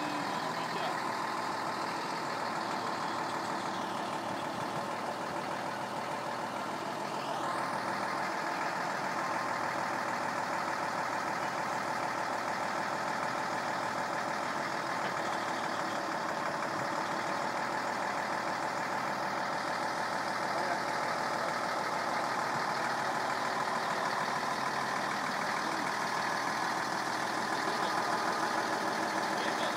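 Diesel engine of a Mercedes-Benz crane truck running steadily, powering its hydraulic loader crane as it hoists a potted olive tree.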